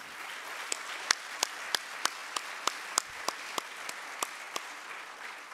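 Audience applauding, with a run of louder, evenly spaced claps standing out at about three a second that stops about four and a half seconds in; the applause fades toward the end.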